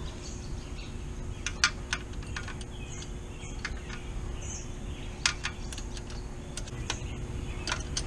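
Scattered sharp metal clicks and taps of a wrench being fitted and turned on a Triumph T120 Bonneville's rear-wheel chain adjuster nut, about ten, irregularly spaced. Birds chirp faintly in the background.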